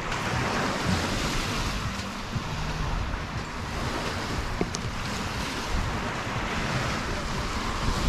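Waves breaking and washing on a beach, with wind rumbling on the microphone.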